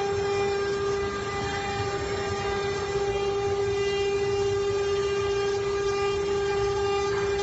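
CNC router spindle running at constant speed, a steady unbroken whine with overtones over a low rumble.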